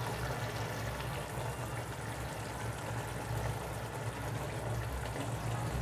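Mustard-sauce hilsa simmering in an open wok over a lit gas burner: a steady hiss over a low hum.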